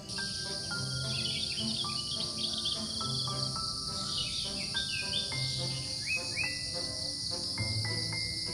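A steady high-pitched chorus of insects with birds chirping now and then, over soft instrumental background music that moves in slow held notes.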